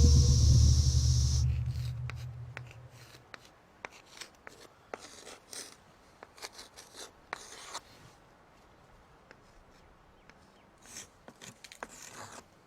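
A deep boom that fades away over about three seconds, while a cicada chorus cuts off about a second and a half in. After that come faint, scattered scratching and ticking sounds.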